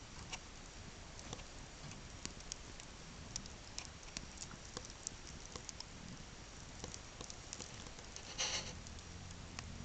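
Small wood cook fire crackling, with faint, irregular pops and snaps several times a second, and a brief louder hiss of noise near the end.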